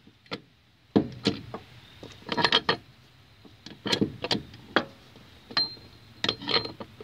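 Steel gear parts in a Jeep Wagoneer Quadra-Trac transfer case's low-range unit clinking and clanking as a gear is turned and worked by hand to drop into place: a string of sharp metallic clicks in small clusters, some ringing briefly.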